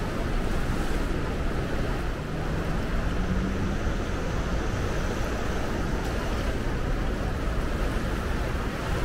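Fast-flowing river floodwater rushing steadily over a submerged path and around railings, with wind rumbling on the microphone. A faint low hum rises briefly about two seconds in.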